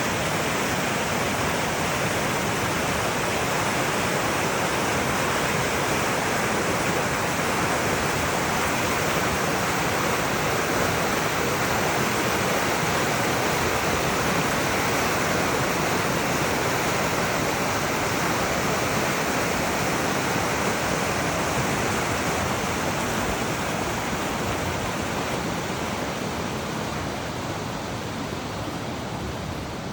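A creek running high in flood: a steady, loud rush of water, easing slightly in the last few seconds.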